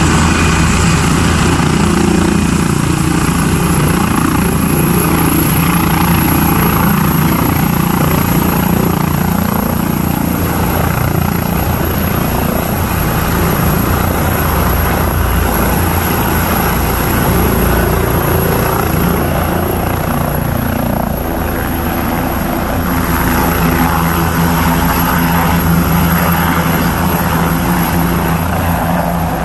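Air ambulance helicopter with its turbines and rotors running at full power, lifting off from the ground into a low hover. A steady, loud noise with a constant high whine over it.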